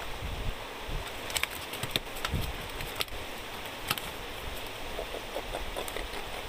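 A hooked black bass is landed in a wooden canoe, giving a few sharp knocks on the wooden boat as it is swung aboard and handled. Underneath runs a steady wash of water and wind.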